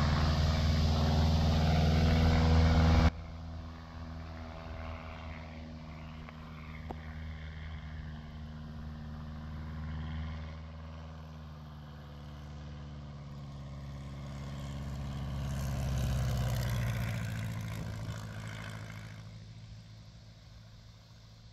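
Light aircraft's engine and propeller droning steadily and loudly, cutting off suddenly about three seconds in. A quieter engine note then swells as the low-flying plane approaches and passes, peaks about three-quarters of the way through, and fades away.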